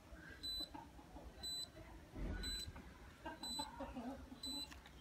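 A short, high electronic beep repeating about once a second, faint, over low background noise.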